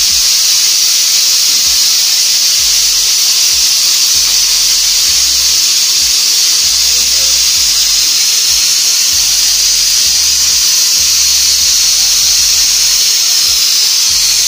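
Stovetop pressure cooker venting steam through its weighted valve in a steady, loud hiss, the sign that it is up to pressure. A faint low rumble comes and goes underneath.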